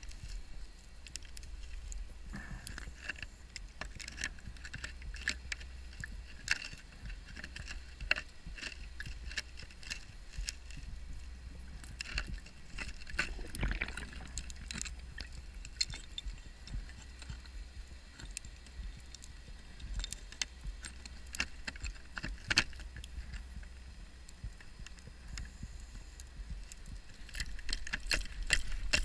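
Underwater sound on a scuba wreck dive: a steady low rumble with frequent sharp clicks and crackles throughout, and a brief louder rush about halfway through.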